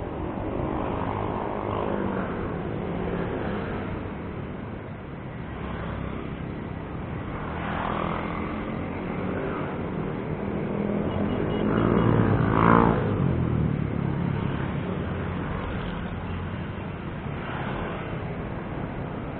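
Road traffic, mostly motorcycles and cars, heard from a bicycle in the lane. Engines swell and fade as vehicles go by. The loudest is a vehicle passing close about twelve seconds in.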